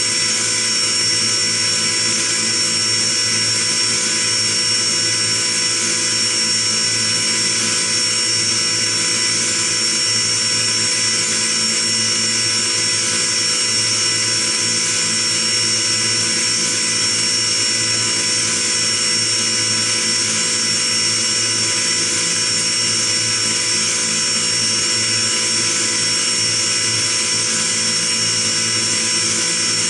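Five-axis CNC machining centre milling a metal block with an end mill, the spindle and axis drives running steadily: a constant high whine over an even hiss.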